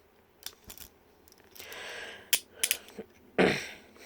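Steel handcuffs being handled, their chain and cuffs giving a few short metallic clicks and clinks, with two longer swishes of handling noise.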